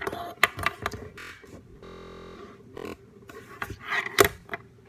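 Scattered sharp clicks and knocks of objects being handled, the loudest about four seconds in, with a brief steady buzzing tone in the middle.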